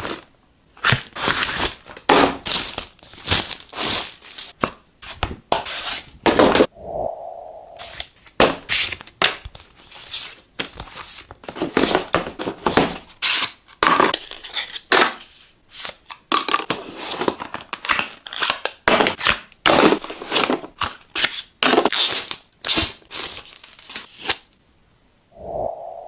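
Tablet packaging being unboxed: repeated tearing and crinkling of wrapping and paper, in quick irregular rustles with short pauses.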